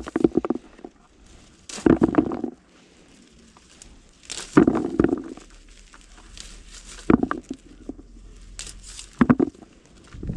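Olive branches and leaves rustling and crackling close to the microphone as olives are stripped off by hand, in about six short bursts of a second or less.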